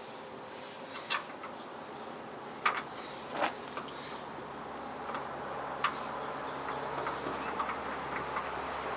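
A few sharp, isolated clicks and taps of metal parts and hand tools being worked while fitting a part on a portable band sawmill, over a steady faint hiss.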